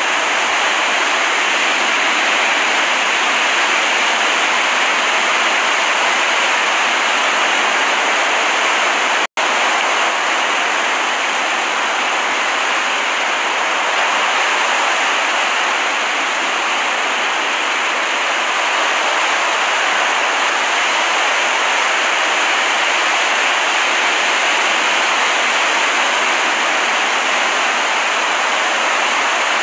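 Steady, even rushing of water from a recorded relaxation soundtrack, with no rise and fall of separate waves. It cuts out to silence for an instant about nine seconds in, like a splice or loop point in the recording.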